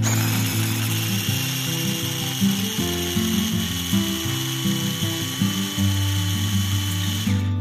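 Small electric mini chopper running with its blade spinning through garlic cloves: a steady whir with a high whine that stops near the end. Acoustic guitar background music plays underneath.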